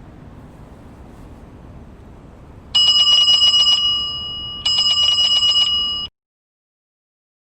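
Electronic bell ringtone from a car speaker: two rapid ringing trills, each about a second long with about a second between them, starting about two and a half seconds in after faint background noise. Both trills cut off suddenly.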